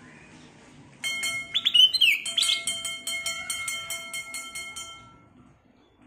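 Black-crested bulbul singing a bright, gliding whistled phrase that starts suddenly about a second in. A fast, even pulsing ringing of about four pulses a second runs with it and fades out a second before the end.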